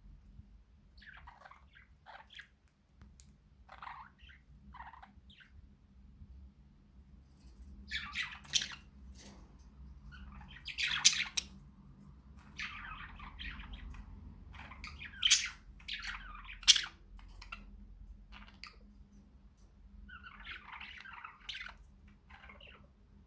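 Budgerigars chattering and warbling in short bursts. It starts with sparse soft chirps and grows busier and louder from about eight seconds in, with a few sharp squawks.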